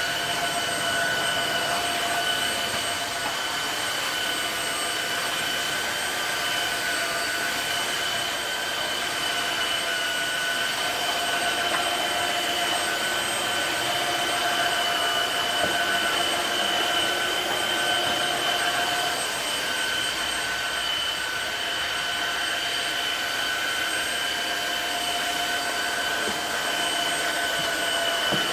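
Tineco Floor One S7 wet/dry vacuum mop running, its suction motor giving a steady high whine over a rushing airflow noise as it cleans tiled floor.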